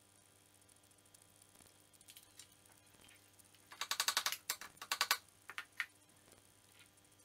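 Rapid metallic ratcheting clicks from a hand tool working a bolt on a scooter's front fork and shock mount: one quick run about halfway through, a second shorter run just after, then a couple of single clicks.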